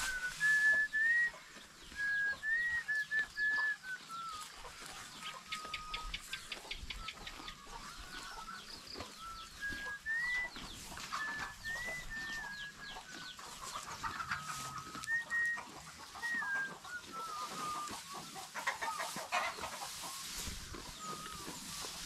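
Chickens calling and clucking: a steady run of short, held calls that step up and down in pitch, mixed with clucks.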